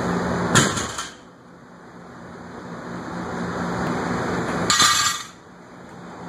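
A heavily loaded barbell with iron plates is set down on a rubber gym floor about half a second in: a hard thud with the plates clanking and ringing briefly. About five seconds in there is a second, shorter clatter as the plates rattle on the bar.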